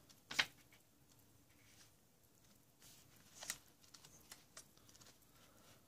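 Quiet handling sounds in a small room: a sharp tap or click just after the start, a second about three seconds later, and a few faint ticks and rustles between.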